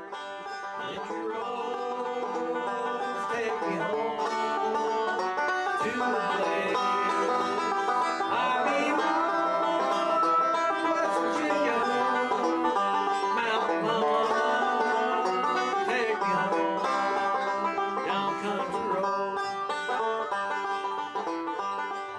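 Banjo picked in a country or bluegrass style, fading in over the first few seconds and then playing steadily.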